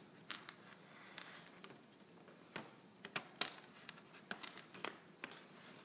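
Scattered light clicks and taps at irregular intervals, several bunched together a little after the middle, over faint room tone.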